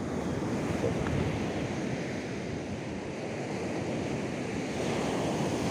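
Steady rush of ocean surf breaking on a beach, mixed with wind noise on the microphone.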